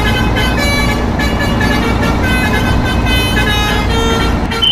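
Bus sound effect: a heavy engine rumble under a run of horn notes that step from pitch to pitch, for a toy double-decker bus. Near the end a steady high tone comes in.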